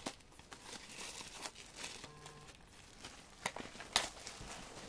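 Plastic shrink-wrap being torn and peeled off a CD album, crinkling with scattered sharp crackles, the sharpest a little after three and a half seconds and about four seconds in.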